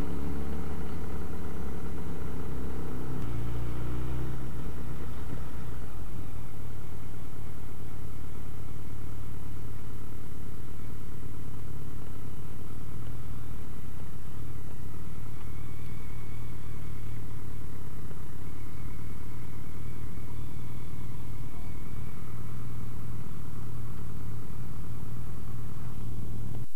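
Motorcycle engine running under way, recorded from the rider's helmet with wind noise. The engine pulls more strongly for the first few seconds, shifts around three to five seconds in, then settles to lower, steady running at low speed.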